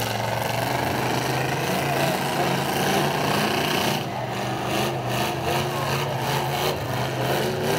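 Demolition derby cars' engines running together, a steady low engine drone under a harsh, noisy layer. About four seconds in the hiss thins and the engine lines stand out more.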